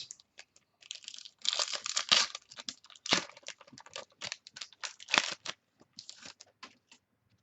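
Plastic trading-card pack wrapper being torn open and crinkled: a rapid run of crackles and rustles that dies away shortly before the end.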